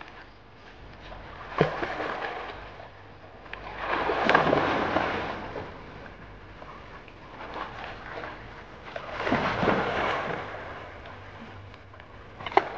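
Water splashing as Dogo Argentinos wade, swim and plunge into a shallow stream, in three surges of about a second each, with two sharp knocks, one near the start and one near the end.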